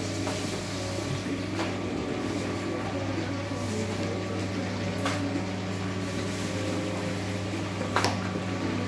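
Steady electric motor hum of kitchen equipment under a soft even hiss, with three short sharp clicks or knocks, about a second and a half, five and eight seconds in.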